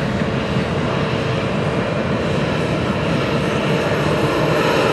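Low-flying crop-duster airplane approaching, its engine and propeller drone growing louder toward the end, over the steady rumble of a freight train rolling past.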